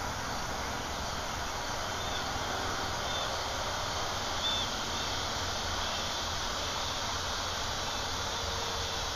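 Steady outdoor background noise, an even rushing hiss with no clear engine note, with a few faint short high chirps scattered through it.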